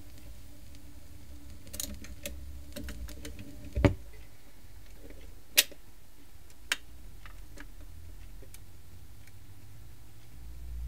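Garrard record deck's auto-return cycle at the end of a record, over a low steady hum. A few soft clicks come first, then a dull thump about four seconds in. Two sharp mechanical clicks follow as the tonearm lifts and swings back to its rest, then fainter ticks.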